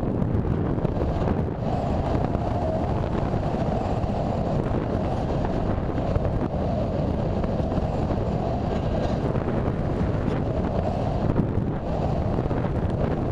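Steady rush of air over the microphone of a camera riding on an RC sailplane in flight.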